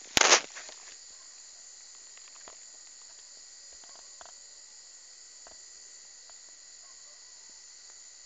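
Steady high-pitched chirring of an insect chorus, typical of crickets. Just after the start comes one brief, loud rustling knock.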